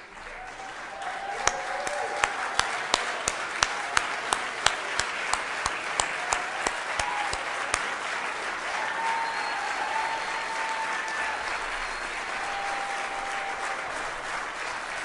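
Audience applauding. For the first eight seconds or so, one person claps loudly close to the microphone, about three claps a second, over the crowd's applause. A few voices call out above it.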